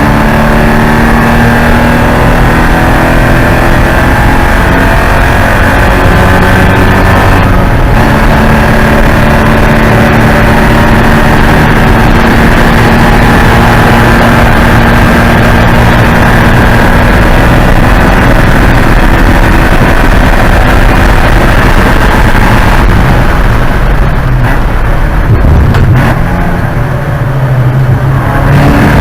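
Porsche 944 Spec race car's four-cylinder engine running hard under racing load, with a brief break in the note about seven seconds in and the engine easing off for a few seconds near the end.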